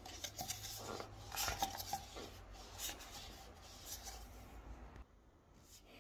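Rolling pins being handled on a tabletop: a run of small knocks, clatters and rubbing for about five seconds, then quieter.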